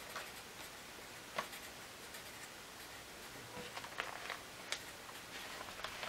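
Felt-tip marker writing on paper, quiet scratching strokes with a few small clicks as the pen meets the page.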